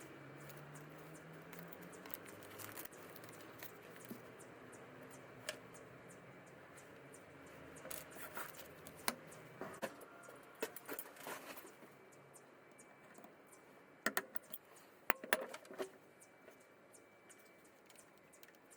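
Scattered small clicks, knocks and rattles of objects being handled, with louder clusters about eight to eleven seconds in and again around fourteen to sixteen seconds.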